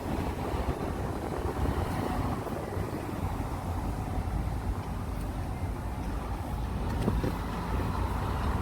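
Wind buffeting the phone's microphone: a steady low rumbling noise without pauses.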